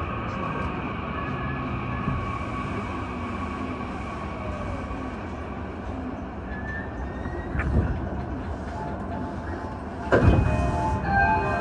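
Running sound inside a JR E235-series train with a Toshiba hybrid SiC VVVF inverter, as it brakes along a station platform and comes to a stop: a steady rumble with faint inverter tones. A brief knock comes nearly eight seconds in, and a louder sudden noise about ten seconds in.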